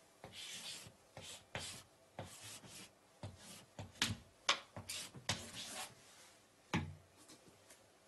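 Chalk scratching and tapping on a blackboard in a series of short strokes as a sum is written out, then a single louder knock near the end.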